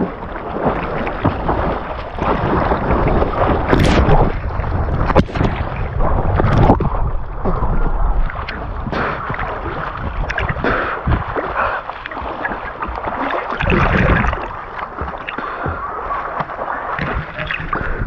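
Water sloshing, gurgling and splashing close up at the water's surface as a man swims through floodwater. Several sharper splashes stand out about four, five and seven seconds in.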